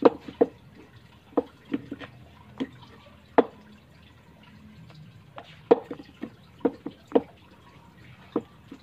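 Small cut wooden blocks knocking against each other and a plywood board as they are set down and stacked: irregular short wooden clacks, with a lull for a second or two in the middle.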